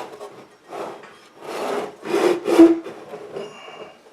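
Handling noise: a few short rubbing, scraping sounds in quick succession, the loudest a little over halfway through.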